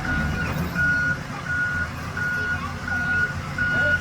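Reversing alarm on a truck or other heavy vehicle beeping as it backs up: a steady single-pitched beep repeating about every 0.7 s, over the low rumble of its running engine.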